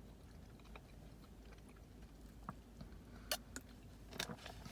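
A person quietly chewing a sandwich with the mouth close to the microphone, with a few sharper wet clicks in the last second and a half.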